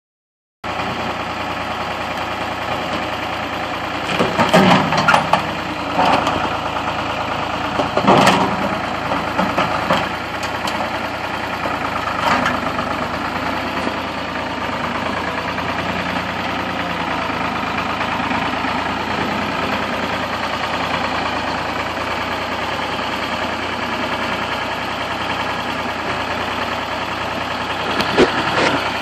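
An engine runs steadily throughout, most likely a machine working on the demolition. Several louder, harsh bursts of noise come over it early on and again near the end.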